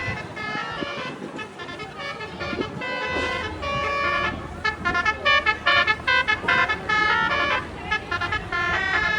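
A bus's Basuri telolet horn, a multi-tone musical air horn, playing a melody as a quick string of short notes that step up and down in pitch, the notes coming thicker in the second half.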